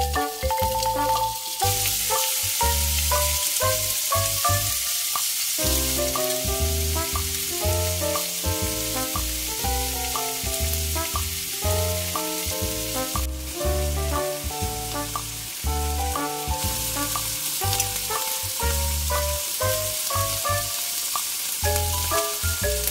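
Capelin sizzling as they fry in a ridged grill pan, a steady hiss that starts about a second and a half in and breaks off briefly about halfway through. Background music with a melody and a steady beat plays throughout.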